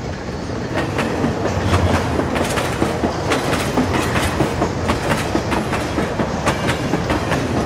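Freight train of open hopper wagons rolling past, a steady rumble with the wheels clicking and clattering irregularly over the track.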